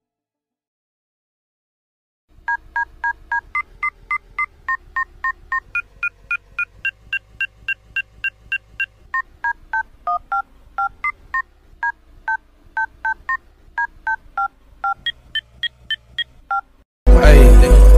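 Phone keypad (DTMF) tones beep in a fast run, about three or four a second, stepping through different pitches like a tune. Near the end a sudden, very loud distorted blast cuts in.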